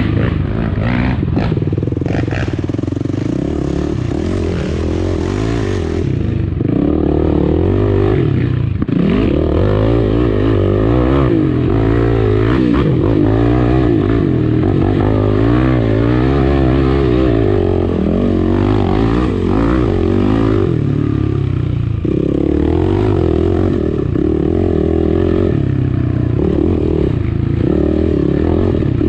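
Yamaha dirt bike engine being ridden hard, its pitch rising and falling constantly as the throttle is worked. Knocks and rattles from the bike over rough ground come through, most clearly in the first few seconds.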